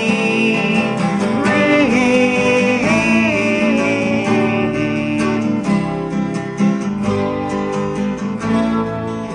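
Recorded song with acoustic guitar and a higher melody line gliding over it, playing between the sung lines of a ballad.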